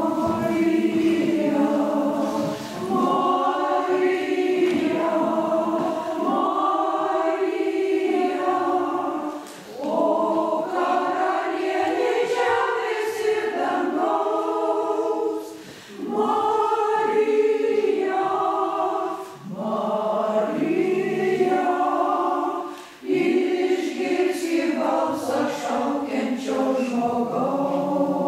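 Mixed choir, mostly women's voices, singing a hymn in phrases of a few seconds with brief breaths between them.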